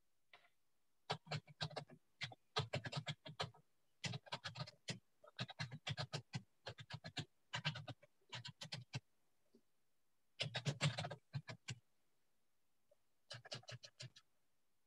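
Computer keyboard typing: runs of rapid key clicks in bursts of about half a second to a second, with short pauses between them.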